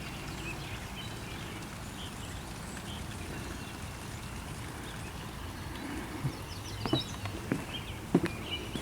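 Outdoor ambience: faint scattered bird chirps over a steady low background noise, with a few footsteps on the path in the last few seconds.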